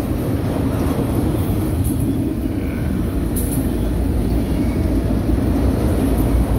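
CSX freight train of autorack cars rolling past, a steady rumble of steel wheels on the rails with a few faint clicks.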